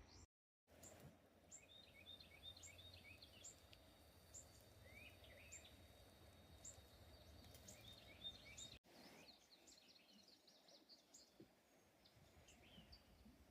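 Near silence with faint outdoor ambience: birds chirping and calling in short notes, over a faint steady high drone.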